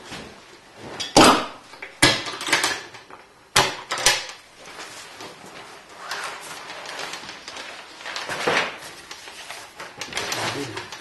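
Hands working a home-made aluminium box camera: several sharp knocks and clunks in the first four seconds, then a stretch of rustling as its cloth cover is lifted back.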